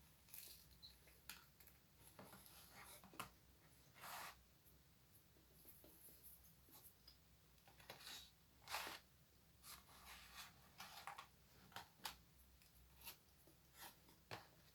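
Faint eating and food-handling sounds: soft rustles, scrapes and small clicks, scattered irregularly, with a few louder rustles about four, eight and nine seconds in.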